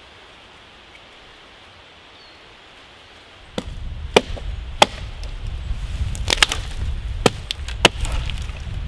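Large bushcraft chopping knife striking dead wood: after a few quiet seconds, a run of sharp chops about halfway in, several in quick succession, over a low rumble.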